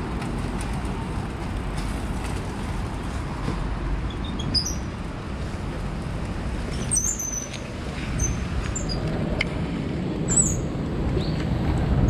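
Birds chirping, short high calls about five times from about four seconds in, over a steady low outdoor rumble.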